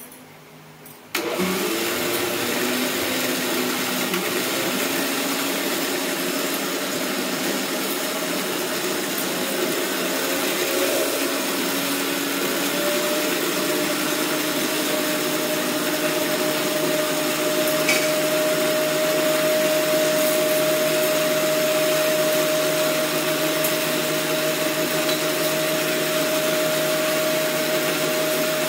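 Electric mixer grinder switched on about a second in and running steadily with a whine, its steel jar grinding chakuli pitha batter.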